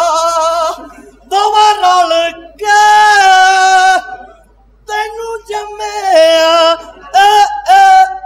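A voice singing unaccompanied in several short phrases of long held notes, broken by brief pauses.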